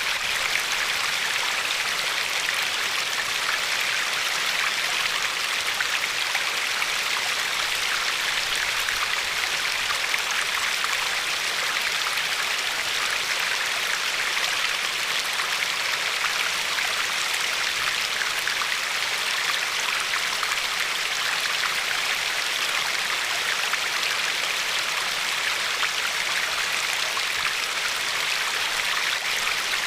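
Glacier-fed river flowing steadily over a pebbly shore, a constant rushing hiss of water with fine splashes and trickles.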